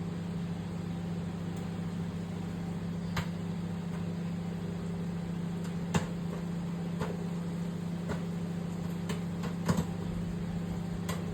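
Microwave oven running with a steady hum while a bag of butter-flavoured microwave popcorn begins to pop: scattered single kernel pops, about one a second, a little more frequent near the end, the early stage of popping.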